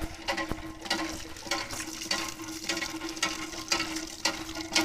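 Water from an iron hand pump splashing onto hands and the concrete basin in spurts, about two a second, as the pump is worked. A faint steady hum runs underneath.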